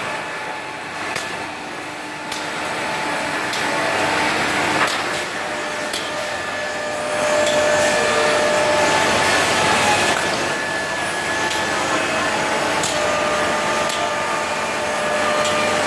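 CNC router's 12 kW HSK spindle milling solid wood: a loud, steady cutting noise with several held whining tones that shift in pitch as the cutter moves, and occasional sharp clicks.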